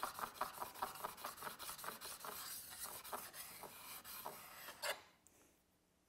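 Plane iron's back being lapped flat on a diamond sharpening stone: quick back-and-forth scratching strokes, several a second, that stop about five seconds in. The lapping knocks the burr left by bevel honing off the back of the cutting edge.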